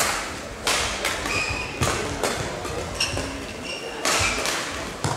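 Badminton rally: rackets strike the shuttlecock with several sharp cracks, roughly a second apart, while court shoes squeak and thud on the sports-hall court mat.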